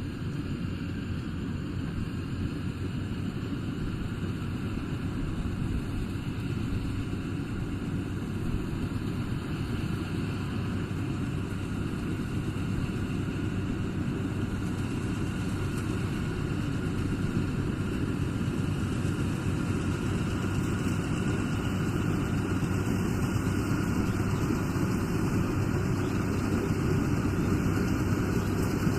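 Rice combine harvester's engine running steadily, a low continuous drone that grows slightly louder near the end.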